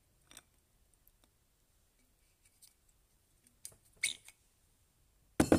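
Glass bottles being handled on a counter: a few light clicks, a brief scraping sound about four seconds in, and a sharp knock near the end.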